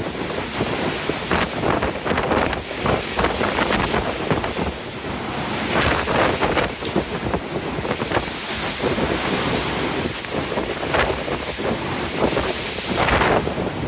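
Rushing of open-ocean waves heard from a cruise ship's deck, swelling in surges every few seconds, with wind buffeting the microphone.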